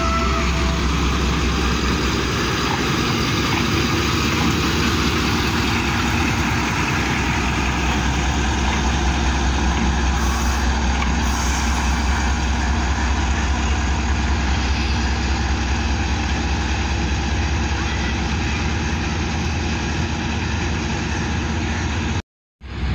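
Pakistan Railways ZCU-30 diesel-electric locomotive running close by, a steady heavy engine drone with a strong low hum. The sound cuts out completely for a moment near the end.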